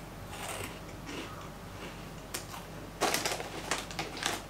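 Crunching as a person chews a baked potato-fries snack, in uneven bursts of crisp, crackly bites that come thickest a little past the middle.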